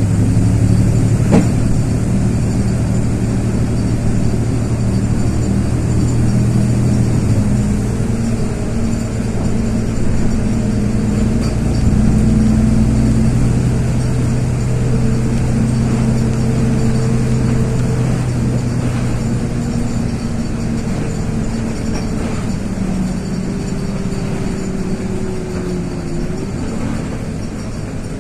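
LiAZ 6213.22 articulated bus under way, heard from inside: a steady diesel engine drone with a whine that slowly shifts in pitch. There is a single sharp click about a second in.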